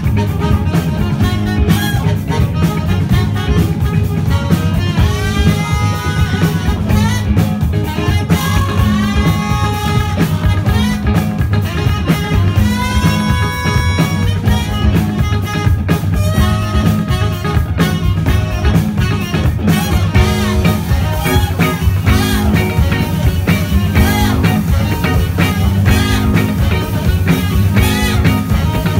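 Live rock band playing loudly: electric guitars over a drum kit, with a lead line of gliding, bent notes through the middle.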